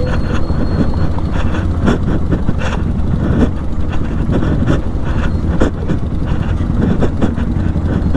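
Motorcycle engine running steadily at low revs, with irregular knocks and rattles throughout.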